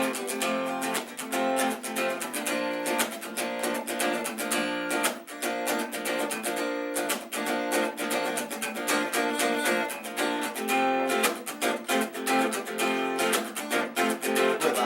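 Acoustic guitar strummed in a steady, quick rhythm of chords, playing the instrumental intro of a song before the vocals come in.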